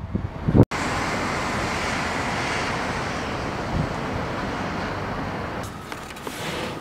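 Wind buffets the microphone, then about half a second in the sound cuts abruptly to a steady, even roar of city traffic from the streets below. The roar drops and changes near the end.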